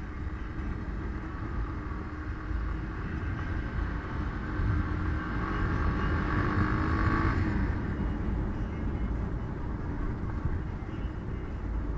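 A car driving along a road: steady low engine and road rumble, with the noise swelling louder from about four seconds in and dropping back after about seven seconds.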